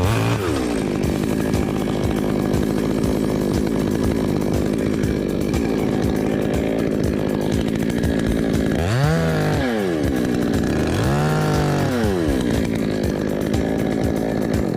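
Chainsaw running steadily, revved up and back down twice in the second half.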